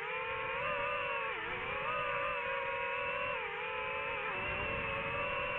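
DJI FPV drone's motors and propellers whining, the pitch dipping and rising again as the throttle changes, with two clear dips.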